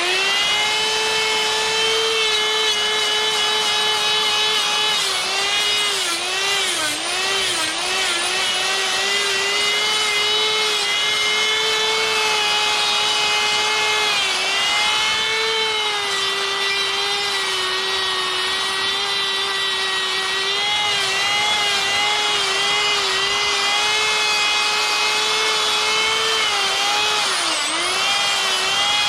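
Die grinder with a sphere burr spinning at high speed and carving wood, a steady high whine whose pitch sags briefly whenever the burr bites, around six to eight seconds in and again near the end.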